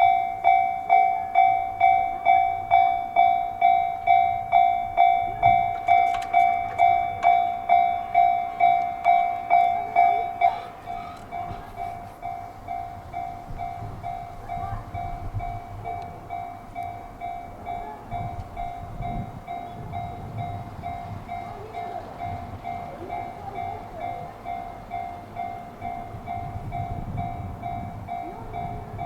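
Japanese level-crossing alarm ringing its electronic bell tone about twice a second. About ten seconds in the alarm drops to a much lower volume, and the low rumble of a passing train rises under it.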